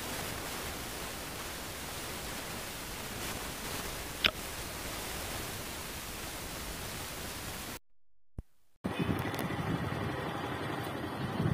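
Steady, even hiss of noise with a brief faint chirp about four seconds in. Near the end the sound cuts out for about a second, then a low rumble starts.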